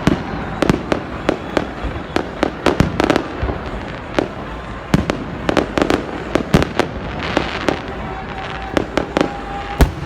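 New Year fireworks going off continuously: many sharp bangs and pops at irregular intervals, some overlapping, over a steady crackling rumble of more distant bursts.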